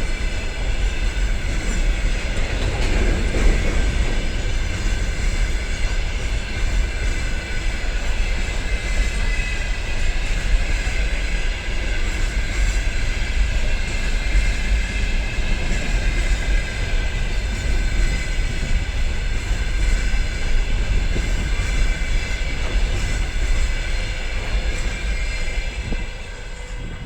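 Freight train cars rolling past, the wheels clattering over the rail joints with a steady heavy rumble and a high ringing tone above it. The sound drops off near the end as the last cars go by.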